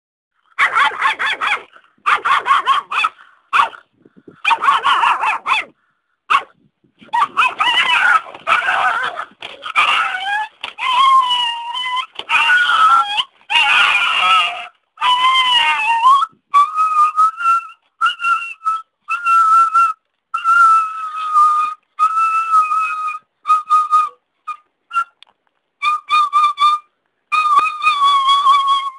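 A dog whining and yelping in a long run of high-pitched cries with short gaps between them. The cries are irregular and wavering in the first half, then settle into a string of steady whines of about a second each.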